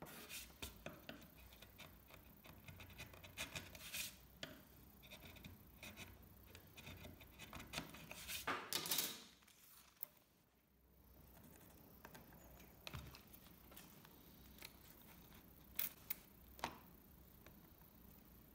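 Faint scratching and scraping on a walnut slab: a chisel working the bark off its edge, then, after a brief hush about halfway, a pencil and rule marking out the wood, with a few light ticks.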